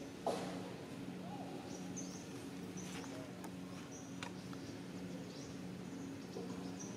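Outdoor ambience: short high chirps repeat about once a second over a low steady hum. A single brief knock a quarter of a second in is the loudest sound.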